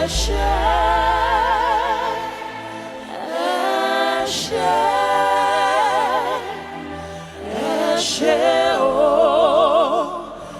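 Gospel worship singing: three long sung phrases on held notes with a wide vibrato, a short breath between each. A low sustained bass note sits under the first phrase.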